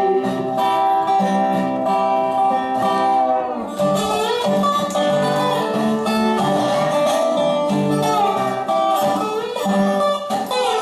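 Resonator guitar played lap-style with fingerpicks and a steel bar: a picked country tune, with some notes sliding down in pitch.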